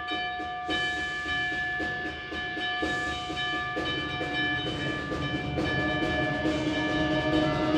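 Concert band playing music that imitates a steam train: held wind chords over a steady chugging percussion rhythm, about two to three strokes a second. Lower parts join about four seconds in and the band grows louder.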